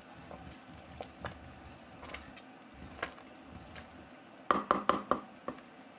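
Wooden spoon stirring thick tapioca pudding in a stainless-steel pot, with a few faint clicks and scrapes. Near the end comes a quick run of about five sharp knocks, the wooden spoon rapped against the pot.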